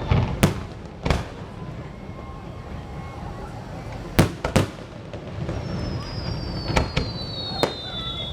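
Fireworks going off: sharp bangs, three in the first second, a close pair about four seconds in and two more near the end. A high whistle slides slowly down in pitch from about halfway through.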